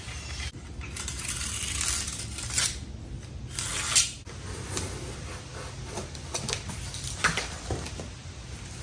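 Cardboard being marked and cut along a metal straightedge: two long scraping strokes, the second ending in a sharp knock, then rustling and light clicks as the cardboard and the level are moved.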